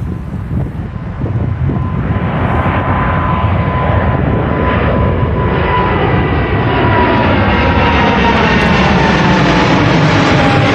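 Airliner's engines passing low overhead, growing louder over the first several seconds, then staying loud, with a high whine that slowly falls in pitch as it goes by.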